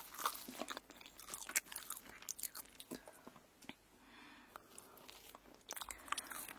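Crunchy food being bitten and chewed close to the microphone: dense crisp crunches, easing off for a couple of seconds in the middle and picking up again near the end.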